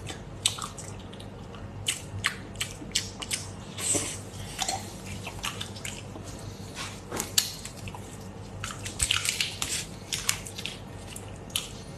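Close-up eating of whole brine-soaked shrimp: a run of sharp, wet clicks and smacks from chewing and handling the shrimp, with brine dripping back into the bowl. The clicks come thickest just before the end.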